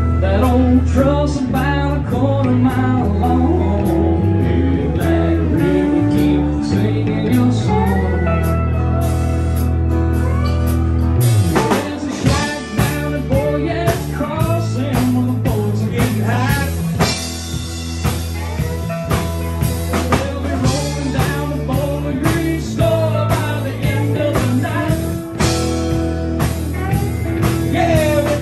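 Live band playing: bass guitar, acoustic and electric guitars and a drum kit, with a lead singer.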